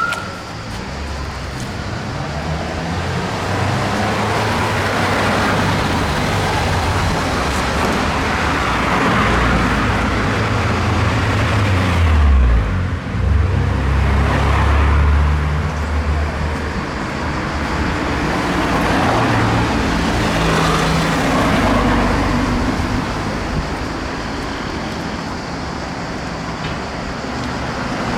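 Motor vehicle engine running with road noise, its engine note dropping and rising again about twelve seconds in.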